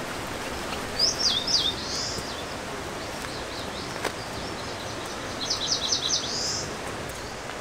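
A small songbird singing two short phrases of rapid, high chirping notes, about a second in and again near the six-second mark, over a steady outdoor hiss.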